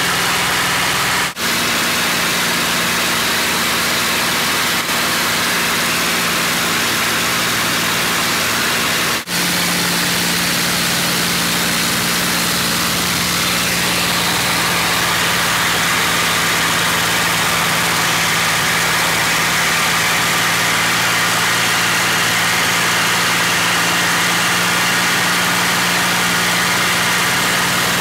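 A P-51D Mustang's Packard Merlin V-12 engine drones steadily in cruise flight, heard from inside the cockpit along with the rush of air over the canopy. Twice early on the sound drops out for an instant.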